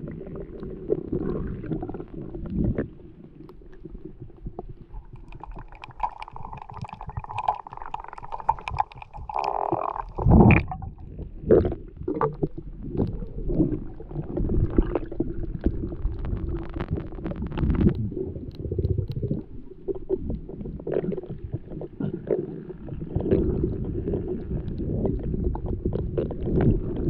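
Underwater sound picked up by a camera on a freediving spearfisher in a reef cave: a steady muffled low rumble of water moving against the housing, with scattered clicks and crackles. About ten seconds in there is one louder burst.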